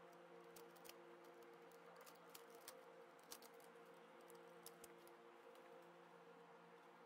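Faint scattered clicks and light knocks as an LCD monitor's main circuit board and its cable connectors are handled and lifted out of the metal chassis, over a steady low hum.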